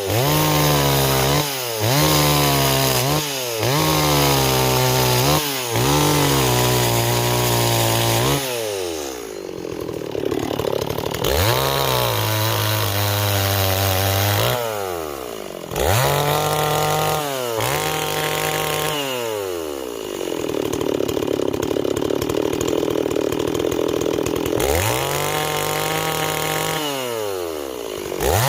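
Stihl 026 two-stroke chainsaw running at high throttle and cutting wood. It starts with a string of short revs, each falling off quickly. Then come longer cuts where the engine pitch drops and holds under load, with brief let-offs between cuts.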